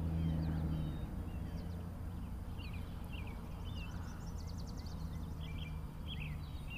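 Small birds chirping repeatedly, short calls with a quick trill about four seconds in, over a steady low hum.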